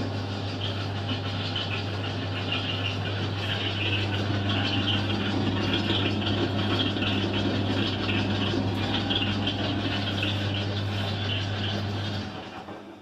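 Clothes dryer running: a steady motor hum under an uneven, grating noise from the turning drum that sounds like a drum-rotation fault but comes from two seeds caught in the drum. It winds down and stops about twelve seconds in.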